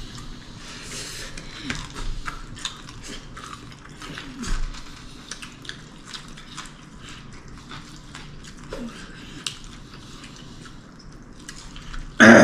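Close-up chewing and eating: irregular small wet clicks and smacks of someone eating a meal. A brief louder burst comes just before the end.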